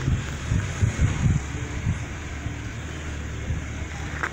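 An engine or motor running steadily with a low hum, with wind buffeting the microphone during the first couple of seconds.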